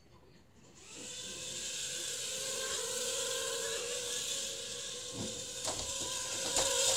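Small electric motor of a remote-controlled toy starting about a second in and running with a steady whine and hiss, with a few light knocks near the end.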